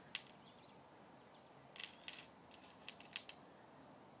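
Quiet yard with a few faint crackling rustles of dry leaf litter, in short clusters about two and three seconds in, and a faint bird chirp about half a second in.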